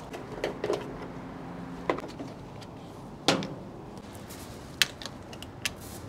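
Scattered sharp clicks and knocks of hand tools and unit parts being handled, the loudest about three seconds in.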